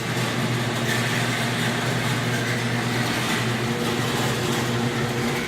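Electric garage door opener running with a steady hum while the door travels up slowly, then stopping right at the end. The door is moving sluggishly, the fault that earlier left it stuck halfway.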